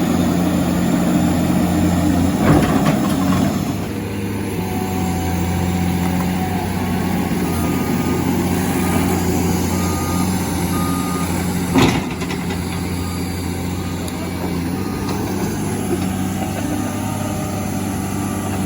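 Heavy equipment diesel engine running steadily, with a backup alarm beeping at an even pace through the middle stretch. Two sharp clanks cut through, one about two and a half seconds in and a louder one about twelve seconds in.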